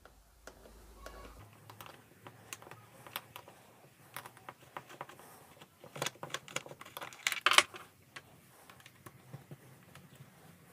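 Allen key turning the screws that hold a chainsaw's recoil starter housing: scattered small clicks and taps of metal on metal and plastic, coming quicker about six seconds in.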